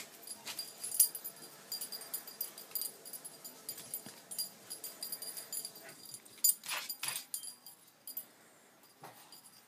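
Pit bull puppy sniffing and snuffling at a crab: scattered short breathy sniffs and faint whimpers mixed with small clicks, a sharp click about a second in and a longer breathy noise past the middle.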